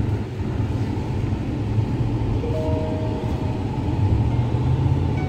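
Off-road vehicle driving over desert sand, heard from inside the cabin: a steady low engine and tyre rumble, with faint music underneath.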